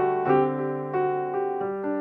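Background piano music, a steady run of single notes and soft chords.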